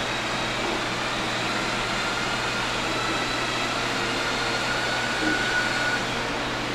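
PR2 robot running steadily as it rolls forward into an elevator: a mechanical whirr and hiss with a low hum and a faint thin whine.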